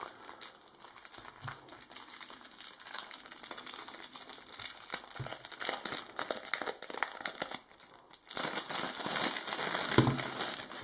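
Clear plastic wrapping crinkling as it is pulled off a puzzle cube by hand, a dense crackle that grows louder over the last couple of seconds.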